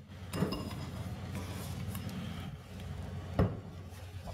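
Room and handling noise picked up by a live condenser microphone: faint rustling and small knocks over a steady low hum, with a sharper knock about three and a half seconds in. It is the sensitive condenser mic catching every small sound around it.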